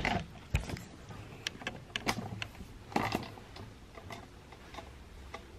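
Soft, irregular footsteps and light knocks from handling a handheld camera as a person walks through the house.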